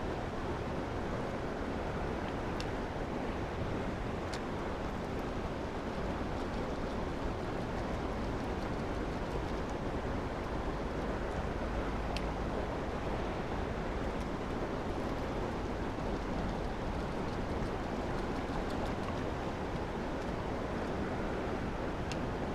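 Fast-flowing, muddy river rushing steadily over rocks, with a few faint clicks.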